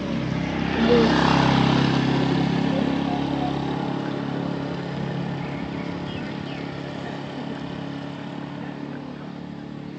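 A motor vehicle's engine passing by, loudest about a second in and then slowly fading as it moves away.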